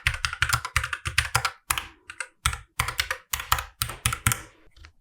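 Typing on a Keychron Q11 split mechanical keyboard with red linear switches: a fast run of keystrokes, with a short pause about two seconds in, thinning out near the end.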